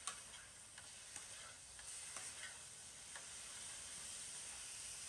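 Egg fried rice sizzling faintly in a pan on a portable gas stove, with a metal spatula clicking and scraping against the pan every second or so as it is stirred.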